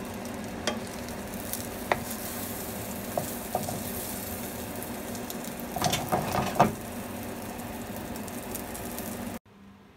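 Beaten egg sizzling in a nonstick frying pan while a spatula taps and scrapes the pan, rolling the omelette. There are a few sharp knocks, with a louder cluster a little after halfway. The sizzle cuts off suddenly near the end.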